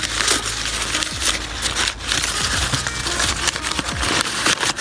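A crumpled sheet of paper being pulled open and smoothed out by hand close to the microphone: dense, irregular crinkling and crackling.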